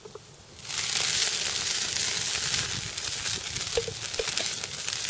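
Pineapple juice poured over chicken on a grill grate sizzling and crackling as it drips onto the hot coals of the fire, starting suddenly about a second in, with a few sharper pops.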